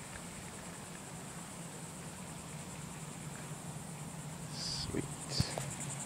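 Steady high-pitched chorus of insects, pulsing evenly, over a low steady hum. Near the end come a few knocks and brief rustles of handling, the loudest a sharp knock about five and a half seconds in.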